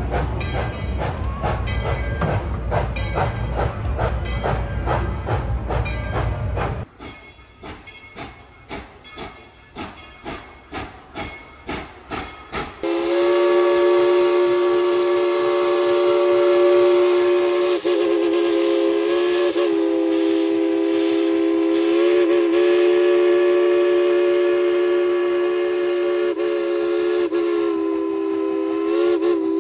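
Tweetsie Railroad No. 12 steam locomotive: a loud running noise for about the first seven seconds, then exhaust chuffs that come faster and faster. From about thirteen seconds in, its steam whistle sounds one long chord, wavering a few times.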